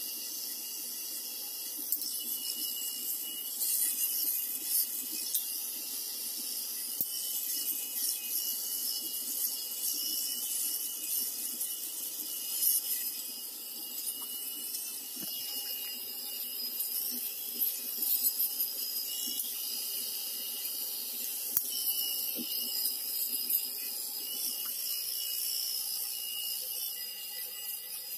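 Enchen Blackstone 3 rotary electric shaver running against the skin, its steady motor hum mixed with the fine crackle of its three floating heads cutting stubble on the neck and cheek.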